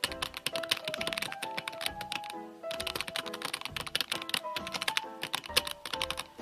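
Rapid typewriter key strikes clattering over light background music, with a brief pause about two and a half seconds in.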